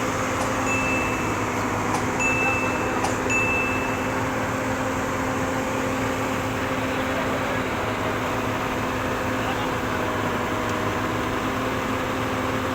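Heavy diesel engine of earth-moving machinery running steadily at a constant speed. Three short, clear, high-pitched ringing tones sound in the first few seconds.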